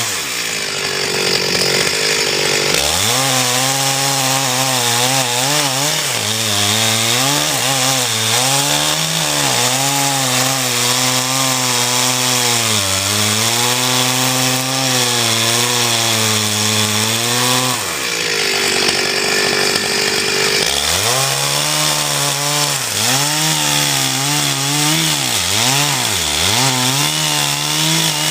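Home-built cone log splitter's drive motor running under changing load, its pitch sagging and recovering as the screw cone bores into logs. Twice, at the start and about 18 seconds in, it slows almost to a stop under a harsh crackling noise as the wood bursts apart, then speeds back up.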